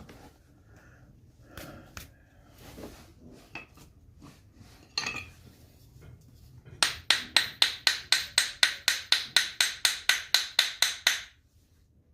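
Rapid, even series of sharp knocks, about six a second for four and a half seconds, as a stuck sharpening-stone box is struck to work it open. Quieter handling clicks come before it.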